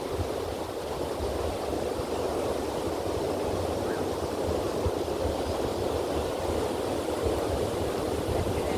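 Steady rush of ocean surf breaking on a beach, with a low, fluttering rumble of wind on the microphone.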